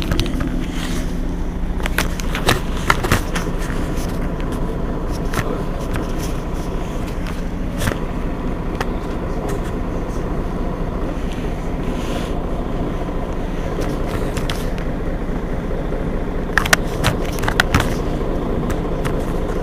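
Mercedes-Benz Citaro G C2 articulated city bus idling at a stop with a steady low engine hum. A few sharp clicks and knocks sound a couple of seconds in, around the middle and near the end.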